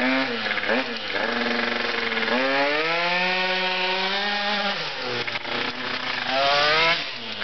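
Small two-stroke moped engine revving as it rides up close. Its pitch climbs about two seconds in, holds high, drops off near five seconds and climbs again briefly near the end. The transmission is still not set up right.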